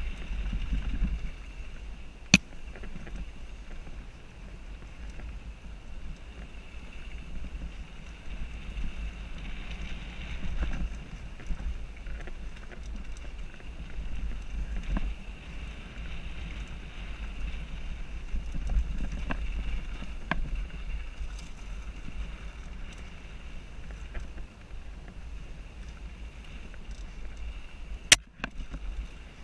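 Wind buffeting a helmet-mounted GoPro's microphone as a mountain bike rides downhill, a steady low rumble with the hiss and rattle of the bike over rough trail. Two sharp clacks, one about two seconds in and one near the end.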